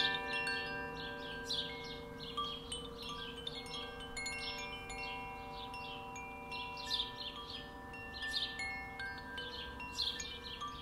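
Koshi chimes ringing: irregular strikes set off many overlapping clear tones that hang on for several seconds, with bright metallic flashes above them and a low steady drone beneath.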